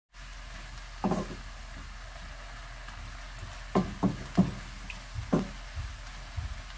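Wooden spatula knocking against a nonstick frying pan while stir-frying fish cake and vegetables: one knock about a second in, then a quick run of four in the second half, over a low steady hiss.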